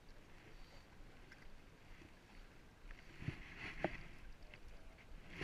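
Faint lapping of small waves against a concrete shore wall, with two short knocks a little over three seconds in.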